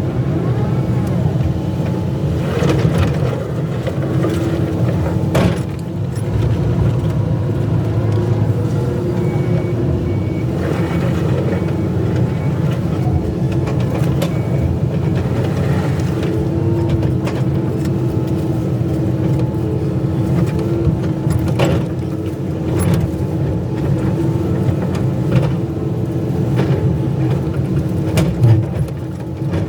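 Excavator's diesel engine running steadily under working load, with occasional short knocks.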